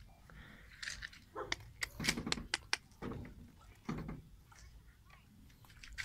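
A dog giving a few short, sharp barks, mixed with light clicks, about one to four seconds in.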